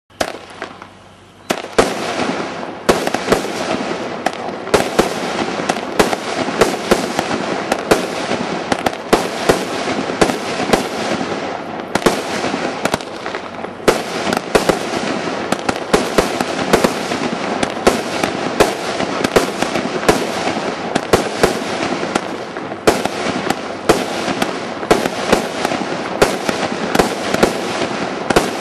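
A 77-shot Canopus firework cake firing: its fuse fizzes for about a second and a half, then the cake launches shot after shot in a steady rapid string, about two to three bangs a second over a continuous hiss.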